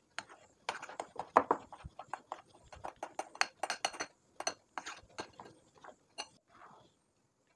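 Metal spoon clicking and scraping against a glass bowl while stirring thick broken-wheat batter with jaggery syrup: a quick, uneven run of light taps that stops near the end.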